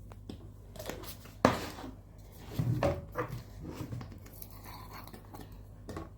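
Handling spice containers and packets while seasoning a pot: a sharp knock about one and a half seconds in, then a cluster of knocks and rustling with a few lighter clicks. A low steady hum runs underneath.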